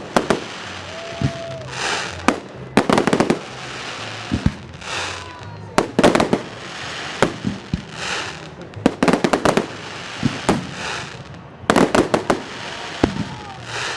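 Fireworks salute: shells bursting with sharp bangs, many in quick clusters, with bursts of rushing noise between them.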